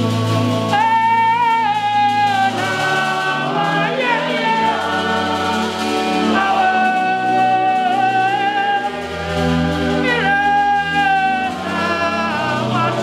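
Gospel worship song: a sung melody of long held notes with slides between them over an instrumental accompaniment with sustained bass notes.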